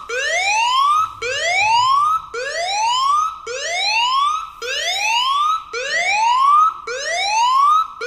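Smartphone anti-theft alarm app sounding through the phone's speaker: a loud siren of rising sweeps, repeating about once a second. It was set off by the charger being pulled out and keeps going until the PIN or fingerprint is given.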